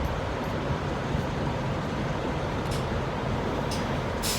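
Steady low engine rumble with a hum, with a few short crisp clicks in the second half.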